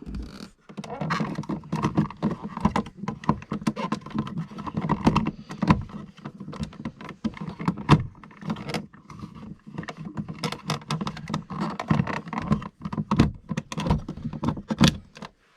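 Close-up handling of a wall power socket's fittings: a dense, irregular run of small clicks, knocks and rattles as parts are pushed and clipped into place.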